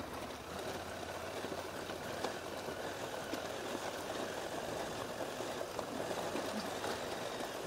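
KTM 790 Adventure R's parallel-twin engine running at low speed over rough grassy ground, heard muffled under a steady rush of wind and tyre noise, with a few faint clicks.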